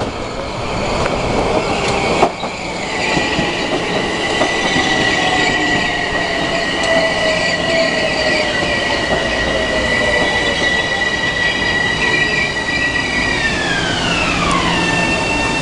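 Metro-North M7 electric multiple-unit train pulling in along the platform, its wheels rumbling on the rails under a steady high whine from its electric traction motors. Near the end the whine's tones glide down together in pitch as the train slows.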